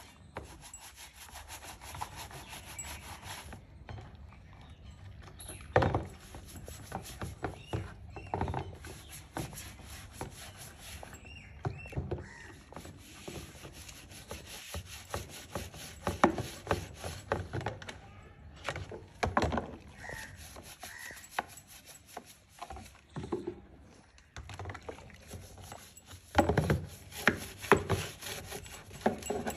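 Stiff-bristled brush scrubbing the inside of a Mahindra Thar's plastic air filter box in soapy water, in quick, irregular strokes, with a few louder knocks.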